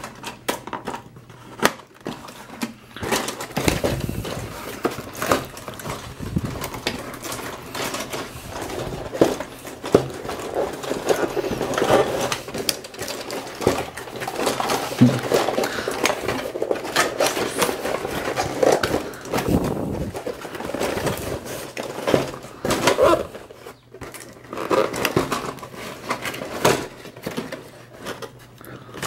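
Plastic Hulk and Iron Man battle figures on hand-worked controllers clattering and clicking as their punching arms swing and the figures knock together, with a short pause near the end.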